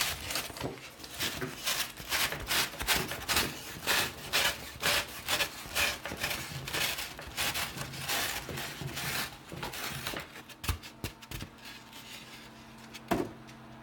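Hot-wire-cut foam rubbing and scraping against foam as the cut wing is worked out of its block, a quick run of short scrapes for about ten seconds, then a few light knocks.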